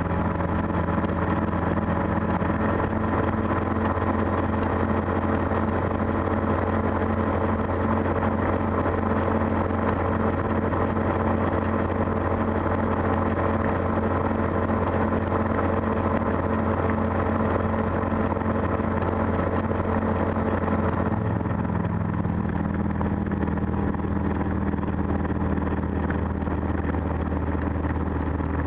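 Calidus gyroplane's engine throttled back to idle during a power-off gliding descent, heard from inside the enclosed cockpit: a steady low drone with some airflow noise. Its tone shifts slightly about three-quarters of the way through.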